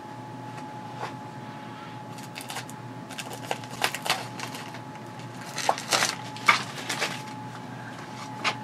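A small book being handled: its cover and pages rustle and flick in a scatter of crisp clicks, busiest through the middle seconds. A faint steady electrical hum runs underneath.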